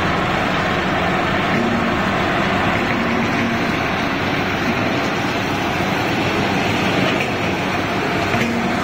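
Snack food production line machinery running: a steady, unbroken mechanical din.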